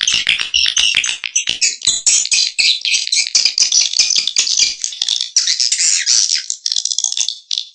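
Swiftlet call-lure recording: dense, high-pitched, rapid chattering and clicking chirps of swiftlets, layered so they run on without a pause. It is a call sound played to attract swiftlets to a nesting house.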